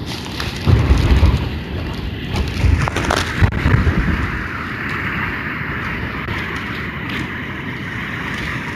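Storm-force wind buffeting the microphone in heavy low rumbling gusts for the first few seconds, then settling into a steadier rushing hiss.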